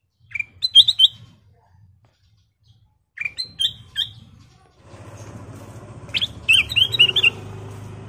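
Ruby-throated bulbul (kutilang emas) singing: three short phrases of quick, bright chirping notes, the last the longest. A low steady hum comes in from about five seconds in.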